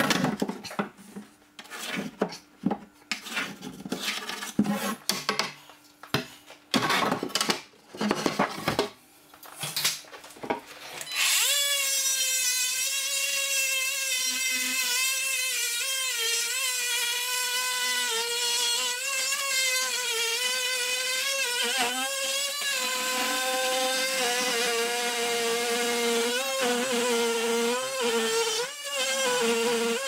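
Irregular knocks and taps on the kitchen-cabinet carcass. About eleven seconds in, a cordless oscillating multi-tool starts and cuts into the melamine-faced cabinet base, a steady buzzing whine that wavers slightly as the blade is pushed through.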